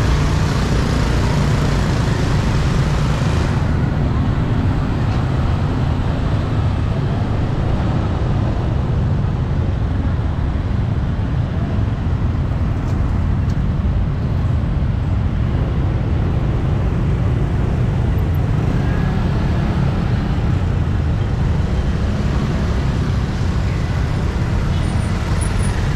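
Steady street traffic noise with a continuous low rumble of engines, and voices in the background.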